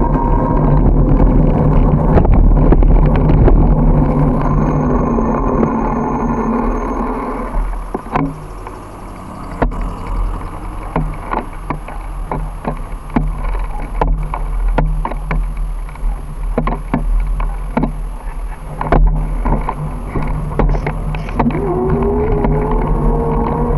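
Riding noise from a bicycle-mounted camera: wind buffeting the microphone and road rumble, with sharp rattling clicks from the bike over bumps through the middle. Near the end a vehicle's engine note rises steadily in pitch.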